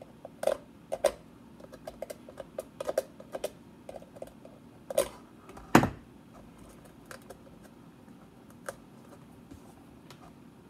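Clear plastic bottle and small plastic parts being handled on a workbench: irregular clicks, taps and knocks. The loudest knock comes about six seconds in, and only a few faint ticks follow.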